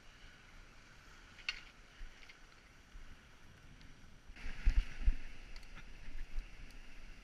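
Ocean surf washing against shoreline rocks, with a louder surge of water in a rock channel about four and a half seconds in, carrying two low thumps.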